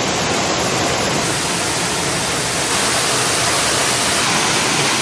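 Waterfall: loud, steady rushing of falling water.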